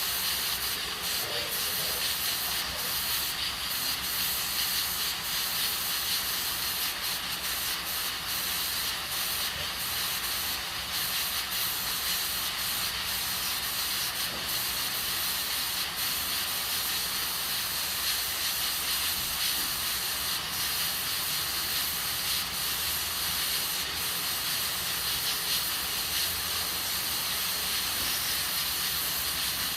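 Aluminium pressure cooker hissing steadily as steam escapes through its valve, a sign that it is up to pressure with beans cooking inside. Faint irregular crackling sits on top of the even hiss.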